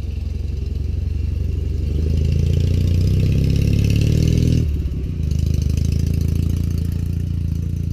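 Motorcycle engine running, growing louder over the first few seconds, with a brief break about halfway, then running steadily.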